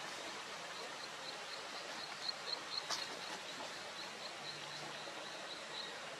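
Outdoor ambience: a steady background hiss with a run of short, high chirps repeating about four times a second, and a single sharp click about halfway through.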